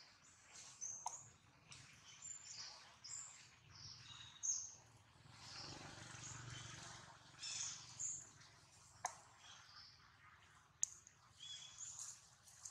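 Faint, scattered high-pitched chirping calls of forest wildlife, with a few sharp clicks.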